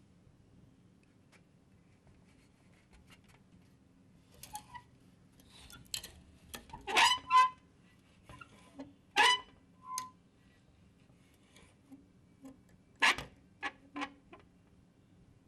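A series of irregular sharp clacks and knocks with long gaps between them, the loudest cluster near the middle; twice a clack is followed by a brief ringing tone.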